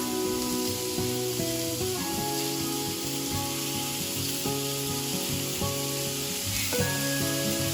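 Meatballs sizzling as they fry in a pan of oil, a steady hiss, under background music of held, changing notes.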